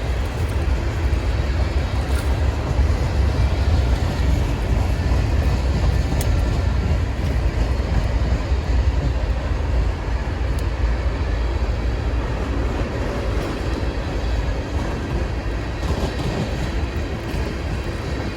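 Norfolk Southern manifest freight train rolling slowly past: a steady low rumble of wagons on the rails with a few faint clicks, easing slightly toward the end.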